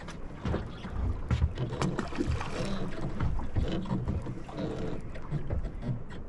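Wind buffeting the microphone and water moving against a small fishing boat's hull, an uneven low rumble with scattered knocks and clicks.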